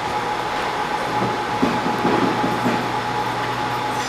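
Steady fan and blower noise with a constant whine from an SMD rework station running its heating cycle.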